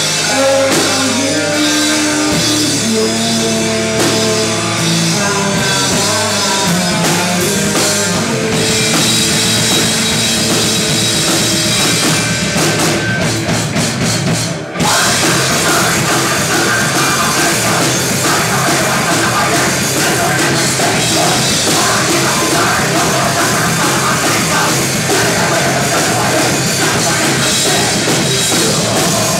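Live heavy metal band playing loud: distorted guitars, bass and a pounding drum kit with vocals. About halfway through the band stops for an instant and crashes straight back in.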